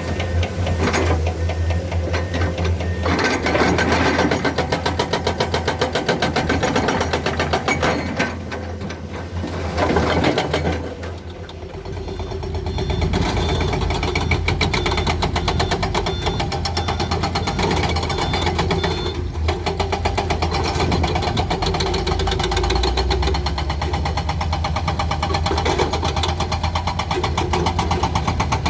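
Heavy-equipment diesel engine running with a fast, even chatter and a low hum, easing off briefly about eleven seconds in, with louder surges shortly before.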